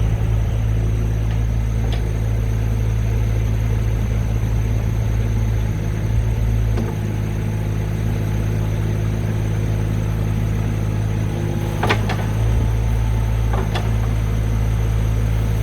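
JCB 8026 mini excavator's 25 hp diesel engine running steadily, with a sharp clank about twelve seconds in and a lighter one a couple of seconds later.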